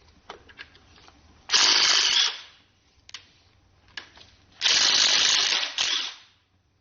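A power tool runs in two bursts, a shorter one about a second and a half in and a longer one of about a second and a half near the end, with light metal clicks and knocks around them. It is working on fasteners during the teardown of a Ford 351W short block.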